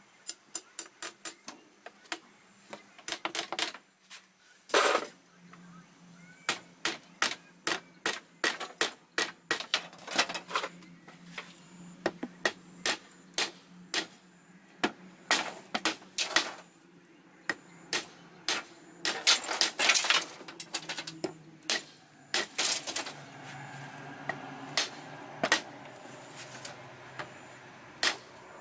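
Irregular series of sharp knocks and taps, several a second in runs with short pauses, from hand work striking a hard surface.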